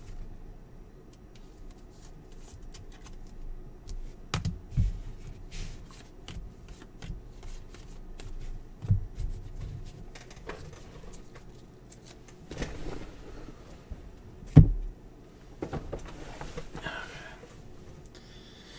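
Trading cards and plastic card sleeves being handled: a run of small clicks, slides and rustles as cards are sorted and sleeved, with one sharp thump about three-quarters of the way through.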